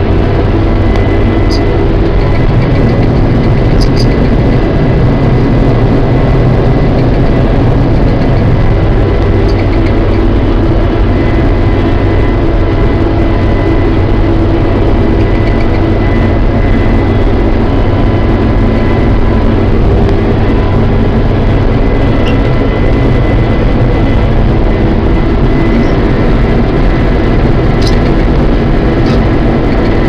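New Holland TR70 twin-rotor combine harvesting milo, heard from inside the cab: the engine and threshing machinery run steadily under load, a loud, even drone with a constant high whine over it.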